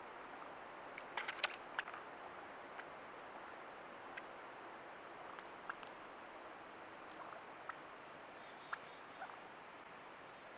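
Creek water flowing steadily, with a scattering of short, sharp clicks and chirps over it; the loudest cluster comes about a second and a half in.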